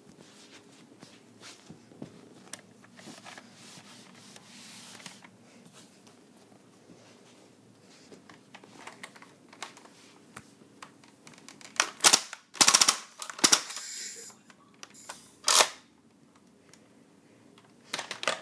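Toy foam-dart blaster: light handling clicks, then loud sharp firing bursts from about twelve seconds in. One burst is a quick run of shots in a row, and single bursts follow a few seconds later and near the end.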